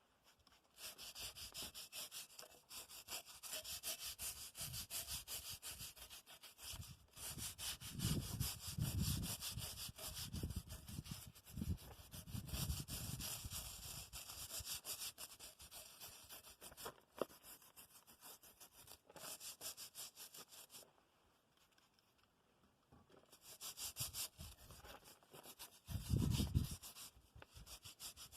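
Rapid back-and-forth scrubbing strokes, like hand brushing on metal, in spells with short pauses, stopping briefly about three-quarters of the way through before starting again.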